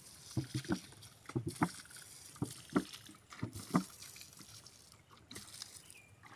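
Water glugging and splashing out of a plastic jug as it is poured over a bed of seedlings, in short irregular gulps that thin out after the first four seconds.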